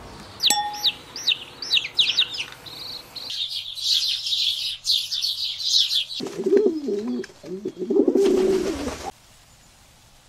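House sparrows chirping: a run of quick falling chirps, then dense high chattering. About six seconds in, a lower wavering call takes over for about three seconds and stops abruptly.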